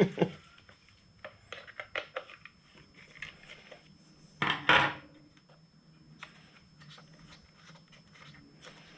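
Scattered light clicks and taps of a hand tool and small parts being worked and handled, with one louder, longer rasping sound about four and a half seconds in.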